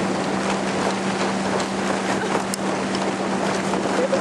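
Motorboat under way with its engine running in a steady hum under a rush of wind on the microphone and water noise, with frequent small slaps as the hull meets the waves.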